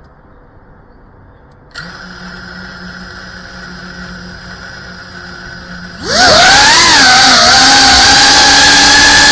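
A GEPRC CineLog 35 cinewhoop's brushless motors and ducted propellers: a couple of seconds in, the motors arm and spin at a steady low idle; about six seconds in, the throttle comes up and the drone lifts off with a loud rising whine that wavers briefly, then settles into a steady high buzz.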